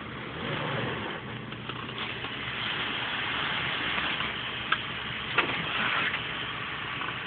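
Off-road 4x4's engine running steadily at low revs, with a couple of sharp knocks about halfway through.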